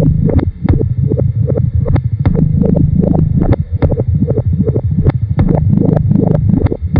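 Experimental tape-music noise: a dense, loud low rumble broken by many sharp, irregular clicks.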